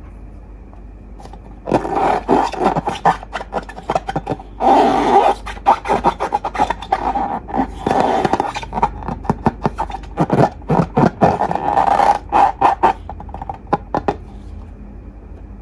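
Glossy slime being squished and worked by hand: a dense run of wet clicks, pops and crackles that starts about two seconds in, comes in irregular bursts, and stops shortly before the end.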